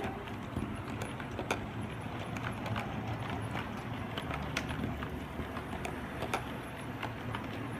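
O scale model freight train, double-headed by two 2-8-2 Mikado steam locomotives hauling tank cars, rolling past on 2-rail track: a steady low rumble of metal wheels on the rails with scattered sharp clicks.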